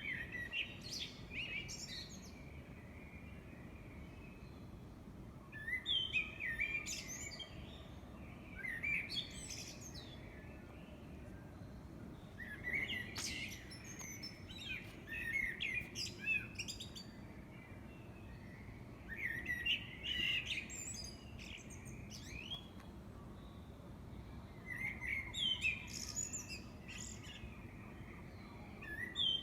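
A songbird singing a varied song: bursts of quick chirps, trills and whistles every few seconds, each burst different from the last, over a faint steady hiss.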